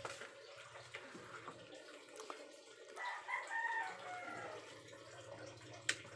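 A faint animal call, one wavering call of about a second and a half about three seconds in, falling in pitch at the end, over a quiet room.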